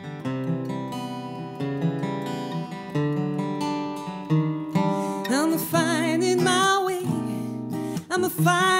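Steel-string acoustic guitar playing a slow accompaniment; about halfway through, a woman's voice comes in singing long held notes with a wide vibrato over the guitar.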